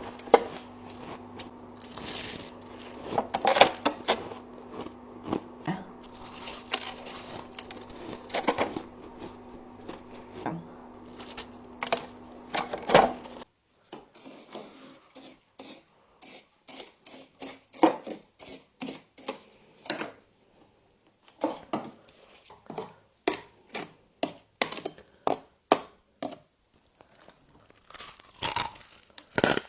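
Frost being scraped and torn loose from an icy surface over a steady hum. The hum stops suddenly about halfway, and then come crisp crunches, a few a second, of frost being bitten and chewed.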